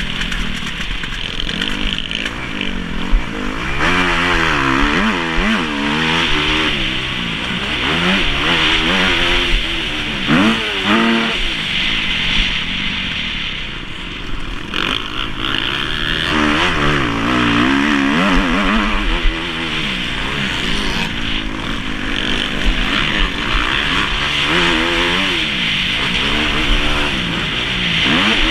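Kawasaki KX250F motocross bike's four-stroke single-cylinder engine, heard onboard, revving hard and shutting off over and over, its pitch climbing and falling every second or two as the rider works around the track.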